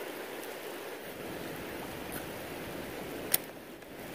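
Steady hiss of rain falling on a river's surface, with a single sharp click about three seconds in.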